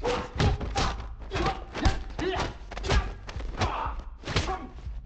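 Hand-to-hand fight: a rapid series of punches and body blows landing, about two a second, with men's grunts between the hits.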